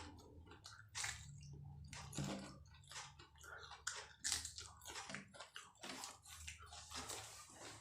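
Close-up eating sounds: a person biting and chewing martabak telur (egg-stuffed fried pancake) loaded with bird's eye chillies, with irregular wet mouth clicks and smacks, several a second.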